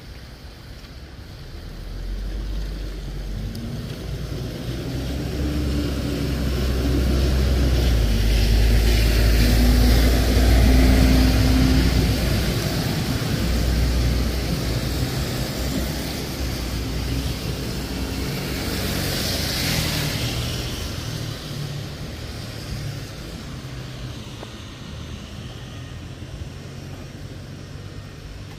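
Motor traffic on a wet road: a heavy engine rumble swells up and fades away over about twenty seconds, with the hiss of tyres on wet pavement from a vehicle passing about twenty seconds in.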